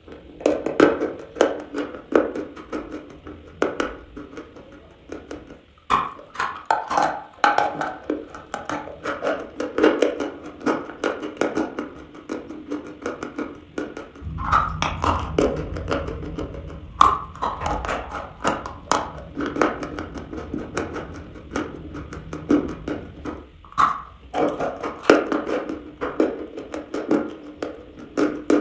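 Biting and chewing a dry chunk of chalk: runs of crisp, rapid crunches, one after another.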